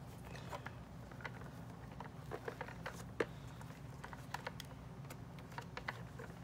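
Light plastic clicks and taps as a Barbie doll is handled and pressed into the seat of a plastic toy car, with one sharper click about three seconds in, over a faint steady low hum.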